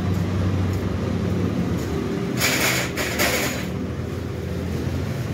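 Diesel engine of a truck-mounted crane running steadily while it lifts a suspended engine, with a harsh burst of hissing for about a second midway.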